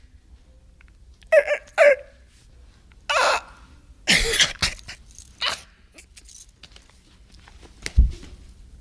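A man's voice making a run of short, barking vocal noises in the style of rap ad-libs, about five in all. A low thump follows near the end.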